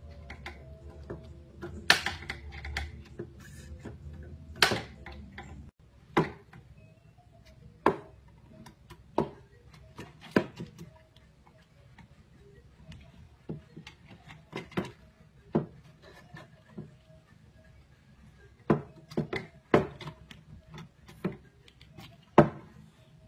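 Cabinet drawer clicking and knocking as a cat paws and tugs at it: a loose run of sharp knocks, roughly one a second, some coming in quick pairs or clusters.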